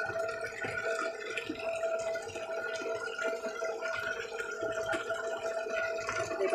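A thin stream of water pouring and splashing into a tub of water, with small splashes from a hand stirring in it and a steady hum underneath.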